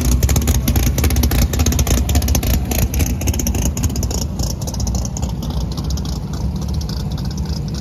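Drag-racing car engine idling with a rapid, choppy firing beat, easing off in loudness after about halfway as the vehicle pulls away.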